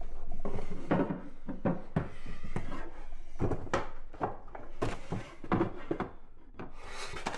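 Books and objects being handled on wooden bookshelves: a run of irregular knocks and thumps as they are pulled out, moved and set back, with a brief rustle near the end.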